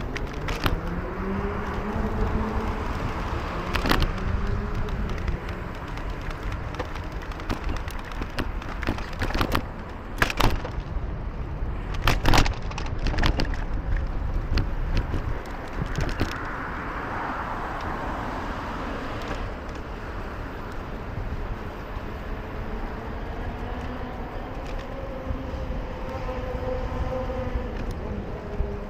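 City street traffic heard while riding through the streets: a steady low rumble of movement and motor vehicles, with an engine rising in pitch near the start and another engine humming steadily near the end. Several sharp clicks and knocks cut through, the loudest about twelve seconds in.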